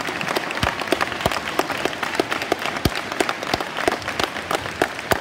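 Audience and choir applauding: a dense patter of many hands clapping, with a few louder claps close by.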